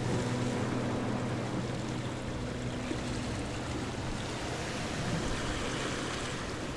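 Background music fading out over the first few seconds, leaving a steady rushing noise that swells slightly in the treble near the end.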